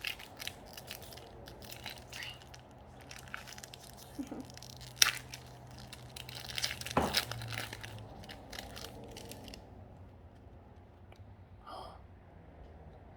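Plastic foil wrapper of a trading card pack being torn open and crinkled: a dense run of crackles and rips with one sharp crack about five seconds in, stopping about ten seconds in.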